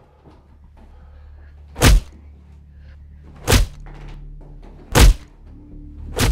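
Four heavy blows landing on a man, each a sharp, brief thud, coming a little closer together each time, over a low steady drone.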